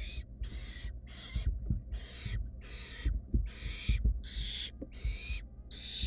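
Barn owl nestlings giving their rasping, hiss-like begging calls, one rough hiss after another at about two a second, with soft thuds as the chicks shuffle on the nest-box floor.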